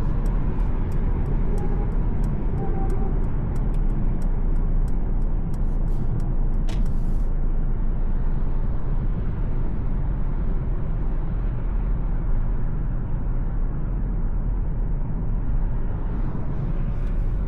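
Steady cabin rumble of a 2025 Mercedes-Benz C 200 on the move: road and tyre noise with its 1.5-litre petrol engine. A fast, even ticking runs through the first six seconds or so.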